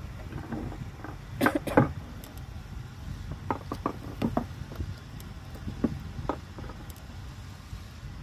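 Clicks and knocks from a fishing handline and its spool being handled in a small wooden boat: two loud knocks about a second and a half in, then scattered lighter ticks, over a low steady rumble.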